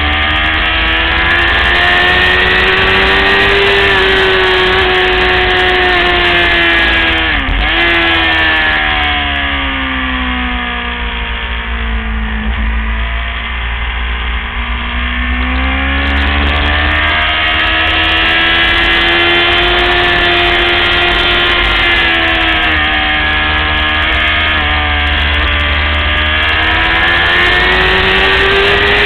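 600cc sport motorcycle engine running hard at racing speed. Its pitch dips sharply about seven seconds in, falls away over a few seconds as the bike slows, then climbs again as it accelerates, with another quick dip near the end.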